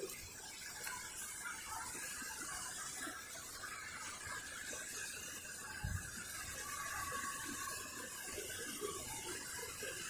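Steady rush of a waterfall-fed stream, with a single low thump about six seconds in.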